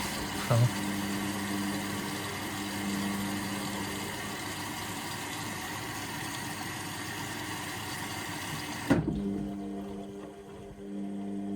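Indesit washing machine filling: the water inlet valve opens with a click and water rushes into the drum as an even hiss, then the valve shuts off with a click about nine seconds in, leaving the machine's steady low hum.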